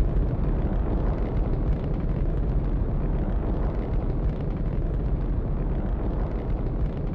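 Rocket spaceship take-off sound effect: a steady, continuous low rumble of the engines.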